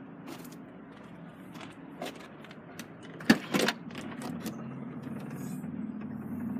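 BMW X5 3.0-litre turbo diesel idling as a steady low hum. About three seconds in, two sharp clunks a fraction of a second apart as the tailgate is unlatched and opened.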